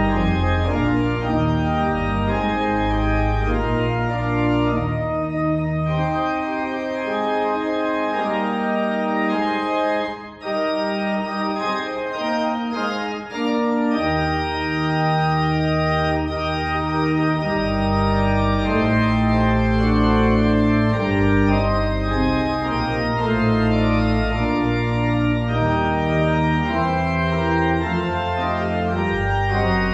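Organ playing the closing postlude in held chords over sustained deep bass notes. The bass drops out for several seconds in the middle, with a brief break about ten seconds in.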